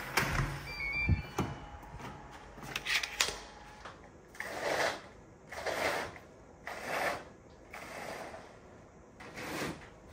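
An electronic door lock beeping briefly as a key card is held to it, with a few knocks. A curtain then being drawn along its rail in a series of swishes, about one a second.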